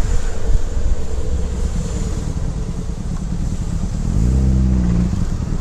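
Motorcycle engine running in traffic with wind noise on the microphone; about four seconds in, an engine note rises briefly, like a throttle being opened.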